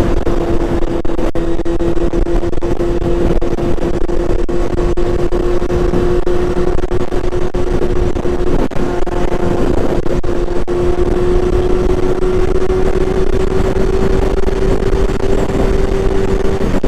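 Honda CBR600 F4i inline-four engine running at a steady freeway cruise, its note holding level and creeping slightly higher in pitch near the end, under heavy wind rush on the microphone.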